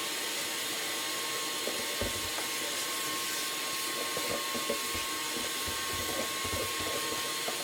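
Steady whooshing hiss of an electric air-blowing power tool with a thin steady whine, and faint low knocks from about two seconds in.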